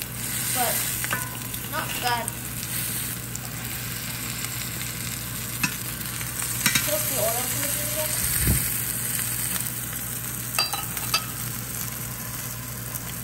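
Swordfish steak sizzling steadily in hot oil in a cast iron skillet, with a metal spatula scraping and tapping against the pan a few times and one dull knock past the middle.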